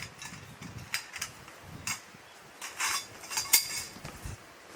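Camping gear being handled: a scattering of separate light clinks and clacks of hard objects knocking together, the loudest about three and a half seconds in.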